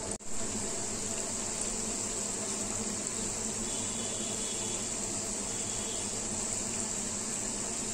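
Mathri (wheat-flour pastries) deep-frying in a pan of hot oil over medium heat: a steady sizzle with bubbling.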